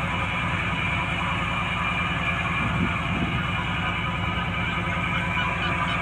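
Fishing boat's diesel engine running steadily with a fast, even low throb.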